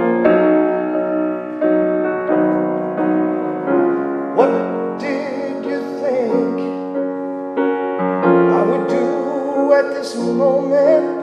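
Piano playing the slow chordal intro of a soul ballad, each chord held and then changed about every half second to second. A wordless sung line with vibrato rises over the chords about four seconds in and again from about eight seconds in.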